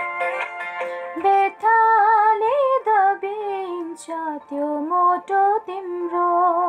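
A woman singing a melody with many slides and turns over an instrumental backing; the backing plays alone for about the first second before the voice comes in.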